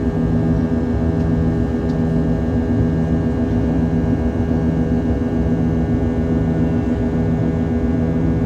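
Boeing 737-800's CFM56-7B turbofan engines heard inside the cabin at high thrust: a steady, loud drone made of many steady buzzing tones over a low rumble.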